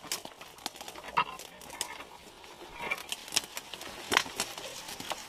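Footsteps pushing through thick brush, with leaves and branches swishing against clothing and twigs snapping at irregular moments.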